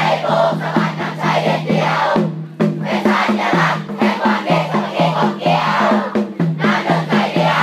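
A large school cheering section sings a cheer song together over music with an even, rhythmic beat.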